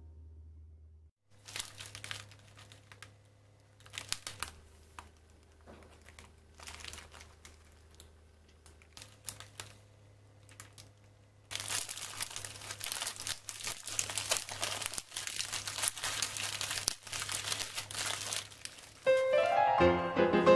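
Plastic wrapper of a packet of Italian ladyfingers (savoiardi) crinkling as it is handled: scattered short crackles at first, then dense, continuous crinkling for several seconds from about the middle as the packet is opened. Piano music comes in near the end.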